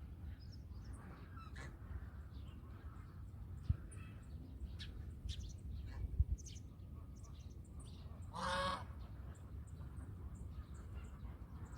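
A goose honks once, loud and nasal, about eight and a half seconds in. Faint short chirps and a steady low rumble sound throughout.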